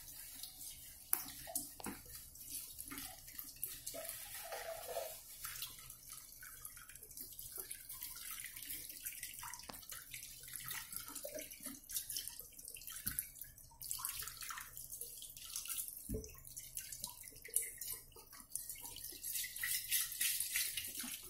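Tap water running and splashing over a metal cup being rinsed in a kitchen sink, with scattered clinks and knocks of the cup.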